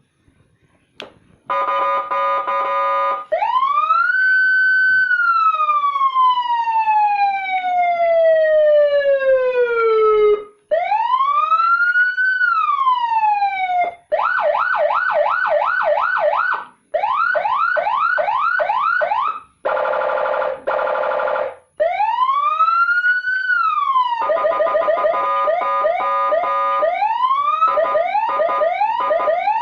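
Senken electronic siren module cycling through its tones with short breaks between them. It opens with a steady horn blast, then a long wail that rises quickly and falls slowly, and a shorter wail. Then come fast yelps of about three sweeps a second, a harsh buzzing horn, another wail, and mixed horn-and-yelp patterns.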